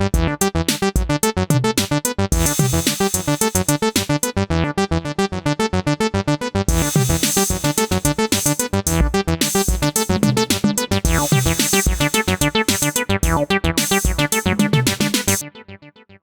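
Acid bassline sequenced on an Elektron synthesizer: a fast run of repeating pitched notes over a steady kick, with a hi-hat-like hiss layer joining after about two seconds. The pattern stops near the end, trailing off briefly.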